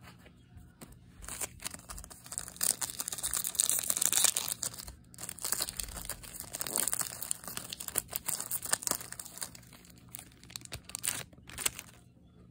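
A Yu-Gi-Oh! booster pack's foil wrapper crinkling and tearing as it is opened, in bursts over several seconds and loudest a few seconds in, followed by a few scattered clicks.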